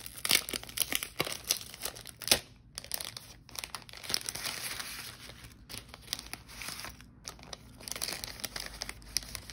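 Clear plastic packaging bag crinkling and rustling as it is handled and opened, with die-cut cardstock pieces sliding out of it. Sharp crackles stand out a little after the start and again about two seconds in.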